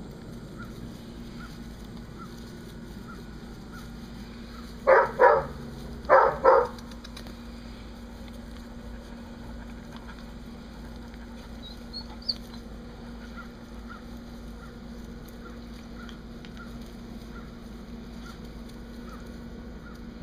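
Four short, loud animal calls in two quick pairs, the pairs about a second apart, over a steady low hum and a faint, regular high ticking.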